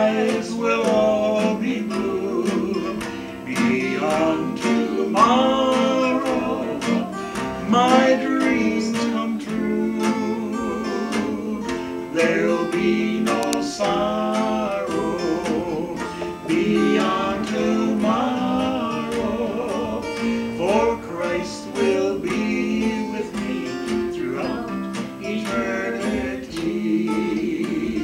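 Acoustic guitar strummed steadily while a man and a woman sing a song together.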